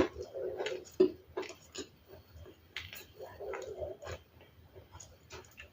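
Ice being bitten and chewed close to the microphone: sharp, irregular crunches roughly once a second, with softer, lower mouth sounds between them.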